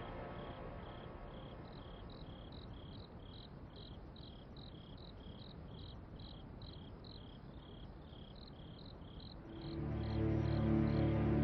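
Cricket chirping steadily, about three short high chirps a second. Low, held music notes swell in near the end.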